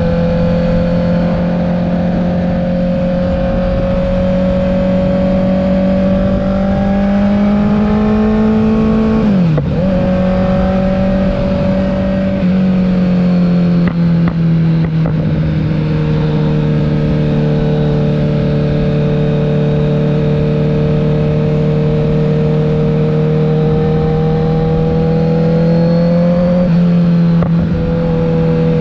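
2021 Kawasaki Z900's inline-four engine, with an aftermarket CS Racing exhaust, upgraded headers and an ECU tune, running under load at a fairly steady pitch. The pitch slowly climbs, dips sharply about ten seconds in, steps down a couple of seconds later, then rises gradually and drops again near the end.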